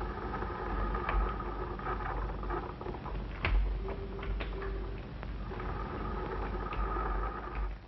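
Laboratory glass apparatus bubbling and humming steadily, with a few sharp clicks, the loudest about three and a half seconds in.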